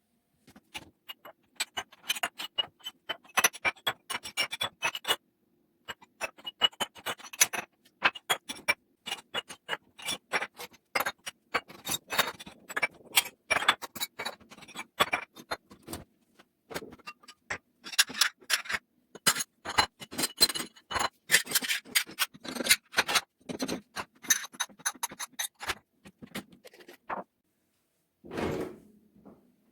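Kitchen items knocking and clattering as they are handled and set down: a busy, irregular run of small clicks and knocks, then one short scrape near the end.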